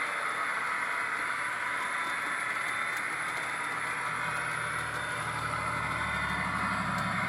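HO-scale model diesel locomotive, a Scaletrains EMD GP30 with a LokSound decoder, running along the track: a steady hiss from the running gear and motor, with the decoder's low diesel engine throb growing louder from about four seconds in.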